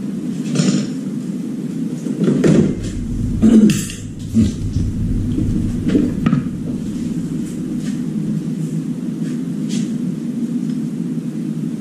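A steady low hum, with several knocks and clatters of something being handled, the busiest stretch a little after two seconds in.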